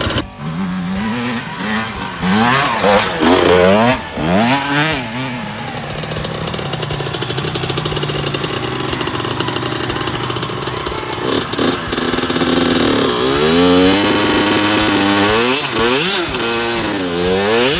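Dirt bike engine revved in repeated rising and falling bursts, settling to a steadier fast idle in the middle, then revved hard again near the end. The rear wheel is spinning and throwing up snow and dirt.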